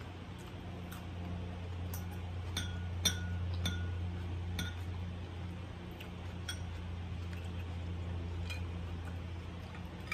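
Metal fork and spoon clinking against a ceramic bowl of pho: scattered light clinks, several ringing briefly, over a steady low hum.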